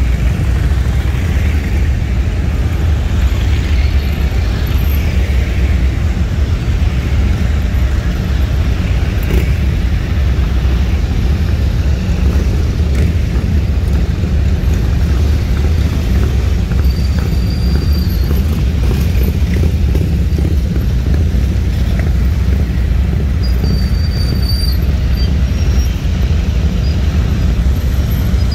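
A column of police motorcycles riding past one after another, their engines making a continuous loud, low rumble from many bikes at once.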